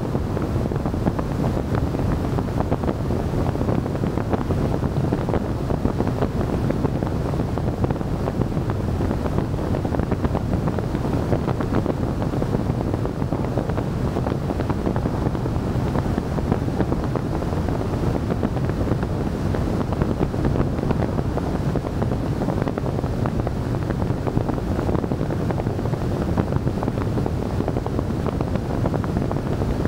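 Steady wind rush and road noise on the microphone of a camera mounted outside on a moving car's bonnet, an even low rumble without breaks.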